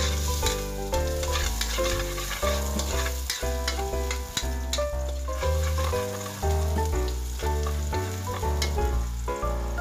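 Minced garlic sizzling in oil in a wok while a spatula stirs and scrapes against the pan, over background music with a steady beat.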